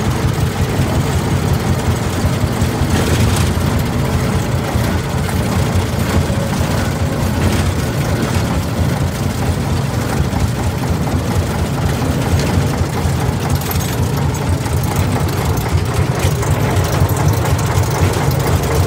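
Ruston and Hornsby LBT narrow-gauge diesel locomotive's engine running steadily with a deep low hum while it hauls a failed locomotive, heard from on board the locomotive.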